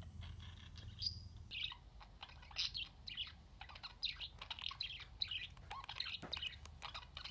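Budgerigar chatter: a rapid, irregular series of short, high chirps and warbles.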